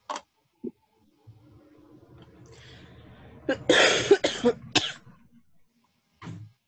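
A person coughing several times in quick succession, a little past halfway through, over a faint low background hum.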